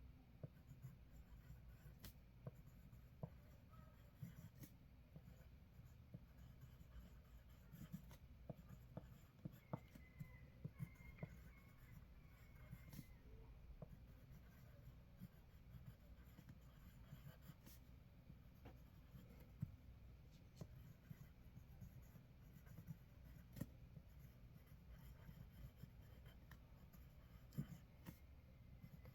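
Faint pencil scribbling on paper: soft scratching with small irregular ticks of the lead on the page.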